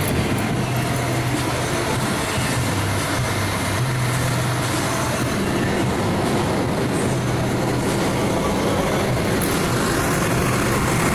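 Fire engine's diesel engine idling: a steady heavy drone with a low hum that swells and drops a few times.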